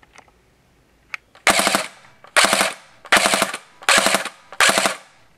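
Airsoft electric gun (AEG) firing five short bursts, one per trigger pull, each cut to three rounds by an AEG Burst Wizard MOSFET set to three-round burst on the full-auto setting.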